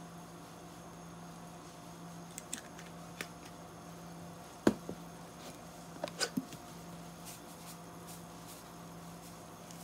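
Large pot of water at a rolling boil, bubbling faintly under a steady low hum, with a few sharp clicks and taps, the loudest a little under five seconds in and a quick cluster around six seconds, as olive oil and salt are added.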